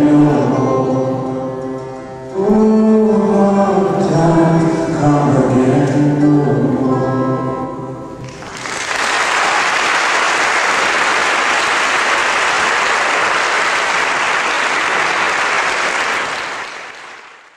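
Voices singing the slow, drawn-out last notes of a folk song over an Appalachian dulcimer. About eight seconds in the music ends and the audience applauds steadily; the applause fades out near the end.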